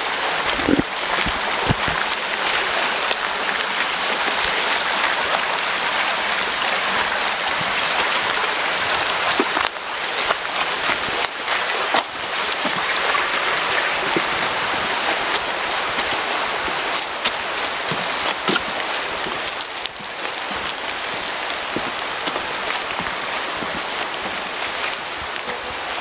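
Steady hiss of rain and running water, with occasional short sharp taps.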